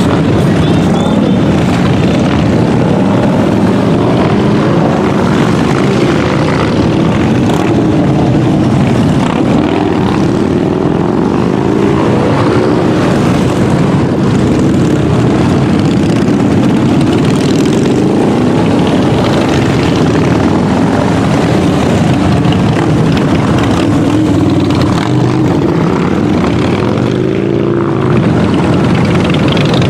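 Many motorcycle engines running together as a loud, steady drone, their pitches wavering up and down; near the end one engine's pitch rises and falls briefly.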